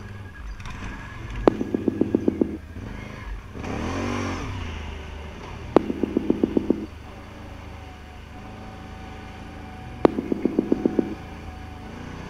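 An ATV engine running low and steady. Three times it is broken by a sharp click and then about a second of rapid even ticking, roughly eight a second. Near the middle there is one brief rise and fall in engine pitch.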